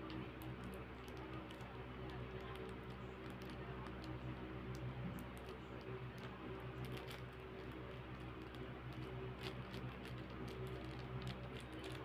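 A steady low hum with scattered faint clicks and taps.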